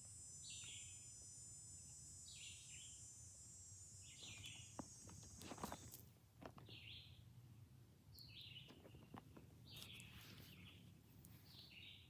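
Faint, repeated short bird chirps, about one a second, over a steady high-pitched insect buzz that stops about halfway through.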